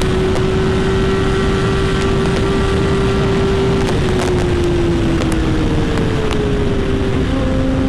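Bajaj Dominar 250's single-cylinder engine running at a steady cruise under heavy wind rush. The engine note eases down slightly past the middle and changes pitch near the end.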